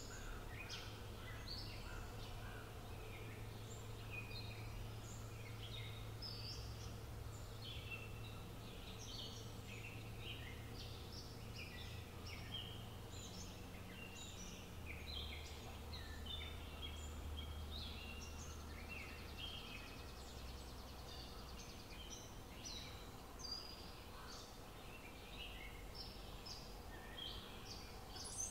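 Songbirds chirping and trilling, many short calls overlapping, over a steady low rumble of outdoor background noise.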